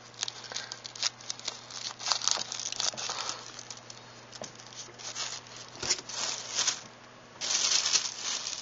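Plastic wrapping crinkling as fireworks packets and plastic-wrapped rockets are handled, in a string of irregular crackles and rustles, with a louder steady rustle about a second before the end.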